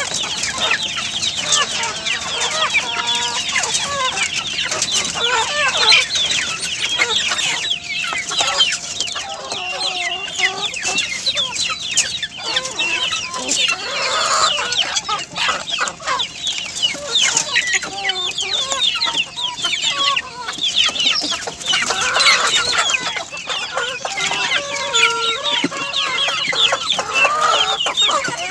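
A flock of hens clucking over and over as they feed together, many short calls overlapping.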